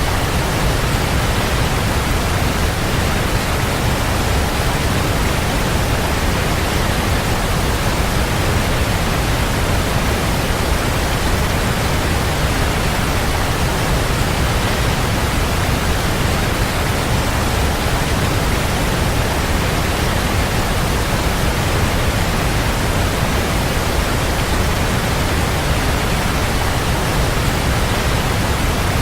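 Waterfall: water pouring and splashing in a steady, dense rush, heaviest in the low end, without let-up.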